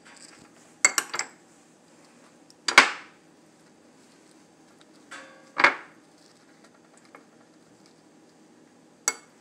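Metal spoon clinking and scraping while pizza sauce is scooped from a jar and spread on a wrap on a pizza pan: a quick cluster of clinks about a second in, a loud clink near three seconds, a scrape leading into a loud clink near six seconds, and a small clink near the end, quiet between.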